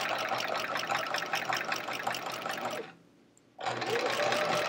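Domestic sewing machine stitching through thick layered denim, the needle clattering rapidly over the motor's whine. It stops abruptly about three seconds in, then starts again under a second later, its whine rising as it picks up speed.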